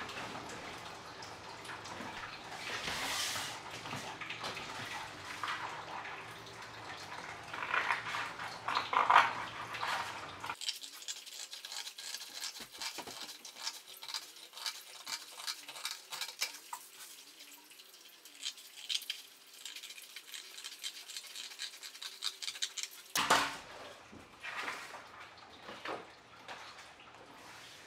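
A sheet of black card being handled and cut with scissors: rustling, scraping and blade snips. For a stretch in the middle the sound is sped up, with the snips coming in a quick run of clicks.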